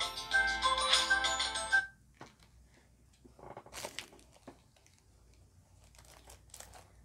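A phone ringtone melody playing, cutting off abruptly about two seconds in. After it, only faint rustling and crinkling as tissue paper is handled.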